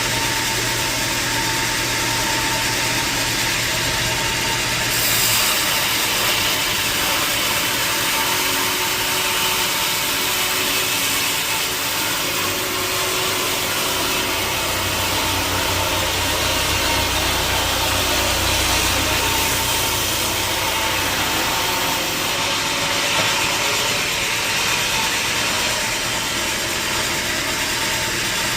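Sawmill machinery running steadily, a dense mechanical noise with a constant high whine. A deeper hum comes in about halfway through and drops away again before the end.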